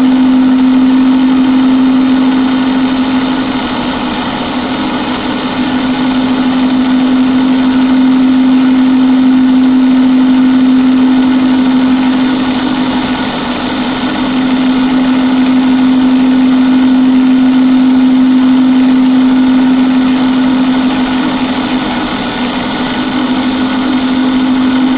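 Drill press converted to a mill, spindle running at about 5,000 RPM as a blue nano-coated 2 mm end mill takes light passes of about a quarter millimetre through a hardened steel bolt head. A loud, steady hum with a hiss of cutting over it, easing a little in level about every nine seconds.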